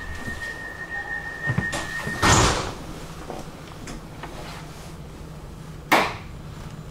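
Door sounds from a Manchester Metrolink M5000 tram at a stop. A steady high warning tone cuts off about two seconds in with a loud rush, and there is a sharp slam about six seconds in.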